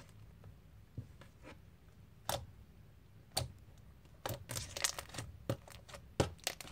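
Homemade glue slime clicking and popping as it is stretched, folded and pressed by hand. There are a few sharp clicks at first, then a quicker, irregular run of pops from about four seconds in.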